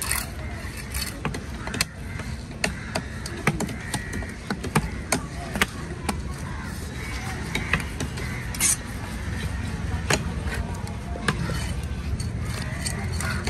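Knife and cleaver blades cutting a large tuna on a wooden chopping block: sharp, separate taps and knocks about once a second, with a brief hiss about two-thirds of the way through, over a steady background of market voices.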